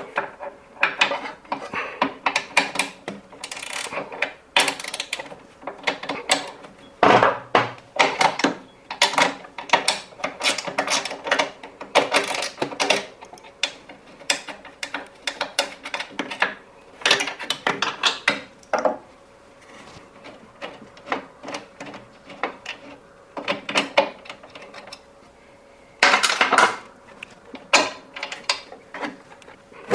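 Hand tools working the 13 mm mounting bolts and nuts of a washing machine motor: irregular runs of metal clicks and clinks as the bolts are undone, thinning out about two-thirds of the way through before a dense run near the end.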